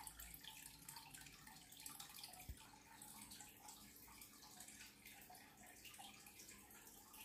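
Near silence: faint room tone, with one soft low thump about two and a half seconds in.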